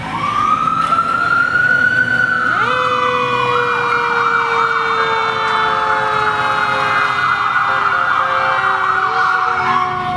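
Emergency vehicle sirens passing: a slow wail rises and falls, then switches to a fast yelp about three seconds in. A second steady tone joins it and slowly drops in pitch as the vehicles go by.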